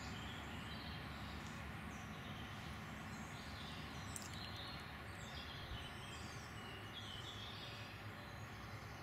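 Steady outdoor background noise with small birds chirping on and off.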